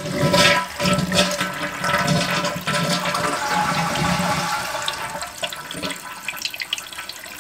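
Toilet flushing: water rushes loudly out of the tank for about three seconds, then the rush gradually tapers off as the tank empties. This is a test flush with a newly fitted flapper and fill valve.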